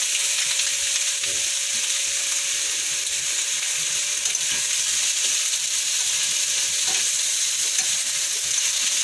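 Whole shell-on shrimp and a crab sizzling in a hot pan as they are turned with a wooden spatula: a steady high hiss.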